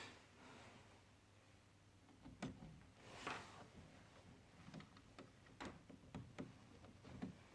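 Faint, scattered clicks and light knocks of plastic Lego Technic pieces being handled and pushed into place, about half a dozen over a few seconds.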